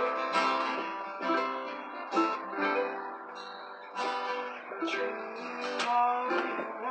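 Two acoustic guitars and a ukulele strummed and picked together, playing instrumentally with no singing.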